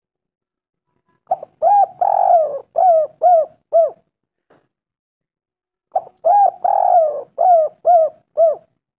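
Spotted dove (tekukur) cooing: two song phrases a few seconds apart, each a short opening note, one longer drawn-out coo, then three short coos. It is a lure call, played to get other spotted doves calling.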